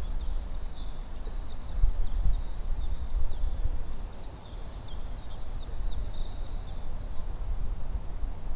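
Wind buffeting the microphone in an uneven low rumble. Over it, a bird twitters in a fast series of short, high, falling chirps that stop about seven seconds in.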